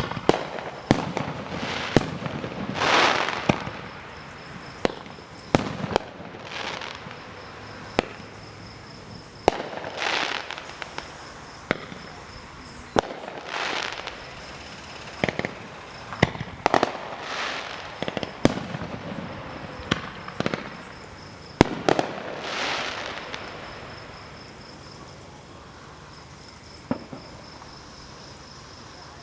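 Fireworks display: aerial shells bursting in quick succession, sharp bangs mixed with crackling bursts. The show thins out about three-quarters of the way through, leaving one last bang near the end. Crickets chirp steadily underneath.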